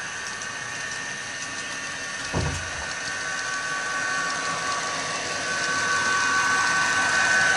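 Recorded diesel engine sound of a Class 67 locomotive (an EMD two-stroke V12) played from the DCC sound decoder's small speaker in an N gauge model as it approaches, with the model's running noise, steady and growing louder toward the end. A single low thump a little over two seconds in.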